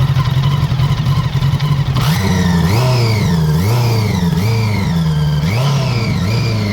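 800cc four-cylinder motorcycle engine idling steadily, then revved in a series of quick throttle blips, roughly one a second, its exhaust note rising and falling each time.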